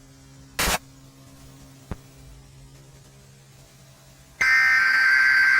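Emergency Alert System SAME header tones: a loud burst of two rapidly alternating digital data tones starting about four and a half seconds in, the first of a repeated series of bursts. Earlier there is a short loud burst of noise and a faint click over a low steady hum.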